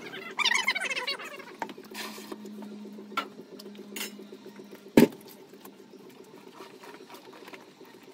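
Feathers being pulled by hand from wet chicken carcasses, a light scratchy patter of small tugs. A brief high-pitched call comes in the first second, and a single sharp knock about five seconds in is the loudest sound.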